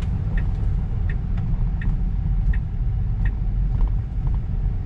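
Steady low road and tyre rumble of a Tesla Model 3 driving, heard from inside the cabin, with faint light ticks now and then. It is an electric car, so there is no engine note.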